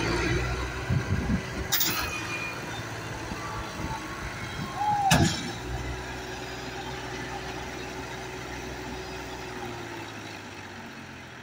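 Standard TSC-510 combine harvester's engine running steadily while harvesting, a low even hum that slowly fades toward the end. Two sharp knocks break through, about two and five seconds in.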